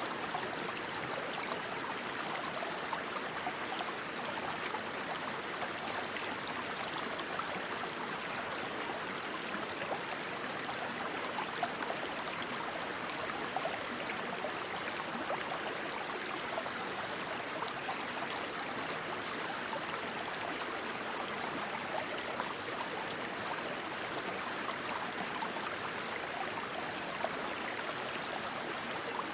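Rushing stream water: a steady noisy flow. Over it come frequent short, high chirps, with a brief high trill about six seconds in and a longer one about twenty-one seconds in.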